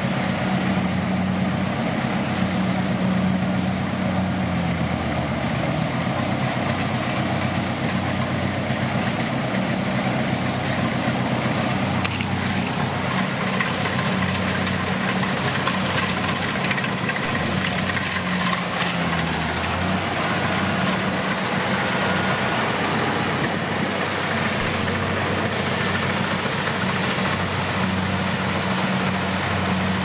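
Engine of a four-wheel farm utility vehicle idling steadily: a low, even hum throughout.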